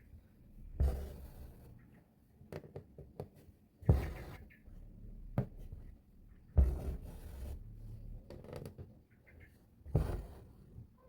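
Needle pushed through fabric stretched taut in an embroidery hoop, each stitch a sharp tap followed by the rustle of thread being drawn through; about five stitches spaced a second or more apart.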